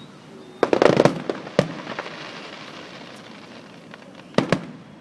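Aerial fireworks bursting: a rapid cluster of sharp bangs about half a second in, another bang soon after that fades away slowly, and two more quick bangs near the end.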